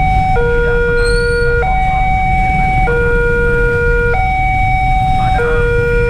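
Railway level-crossing warning alarm sounding while the barrier is down, warning of an approaching train. It is an electronic two-tone signal that alternates steadily between a low tone and a higher tone, each held about a second and a quarter.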